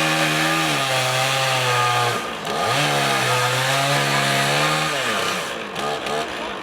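STIHL two-stroke chainsaw running at high revs, its pitch sagging as the chain bites into wood, in two long bursts with a short break about two seconds in. It winds down near the end.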